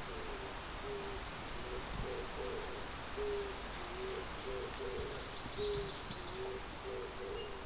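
Pigeon cooing: a low phrase of several soft notes, repeated about every two and a half seconds. A small songbird chirps briefly in the middle.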